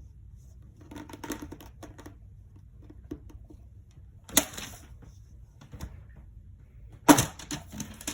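Small plastic fidget toys being clicked and snapped by hand. There is a run of light clicks about a second in, a sharp loud click a little past halfway, and a louder flurry of clicks near the end.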